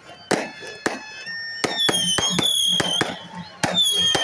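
Fireworks going off: a rapid string of sharp bangs and crackles, with a high whistle from a whistling firework rising over them about halfway through and again near the end.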